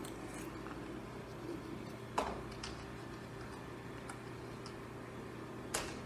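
A low steady hum with a handful of sharp, isolated clicks. The loudest click comes about two seconds in and another just before the end.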